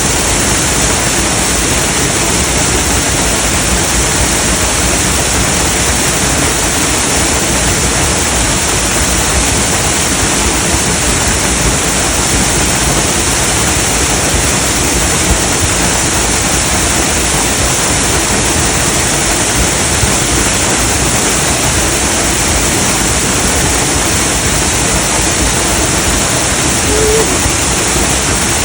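Waterfall close by: a loud, steady rush of falling water that never changes over the whole stretch.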